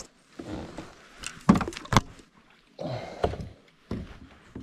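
Knocks and thumps on the plastic hull of a sit-on-top kayak as the paddle is picked up and handled, the loudest about a second and a half in, with a short swish near the end.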